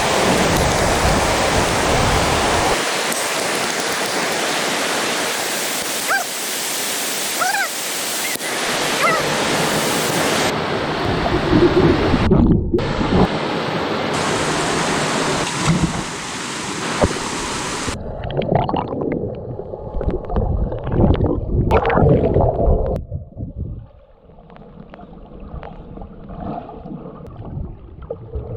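Waterfalls rushing: a dense, steady roar of falling water that changes abruptly at several cuts between different falls. It gives way to a thinner, more uneven water sound that turns quieter near the end. A few short high chirps come through the roar early on.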